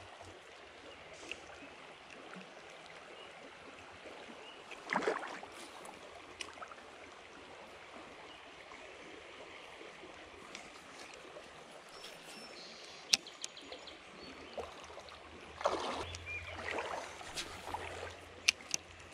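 Shallow stream flowing: a steady, soft rush of water. It is broken by brief louder noises about five seconds in and again near the end, and by a few sharp clicks near the end.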